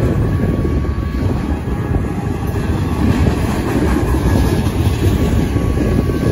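Double-stack intermodal freight cars rolling past a grade crossing: steel wheels running on the rails in a loud, steady noise.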